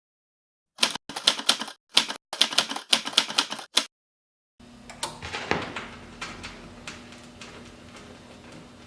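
Bursts of rapid, sharp mechanical clicks, broken by short dead silences. About halfway through they stop and give way to a steady hiss with a low hum and scattered faint crackles.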